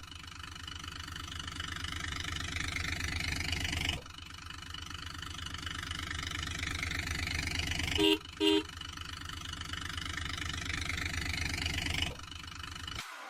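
Vehicle engine sound running steadily with a fast low throb and slowly revving up, cutting off and starting over twice. Two short horn honks come a little past the middle.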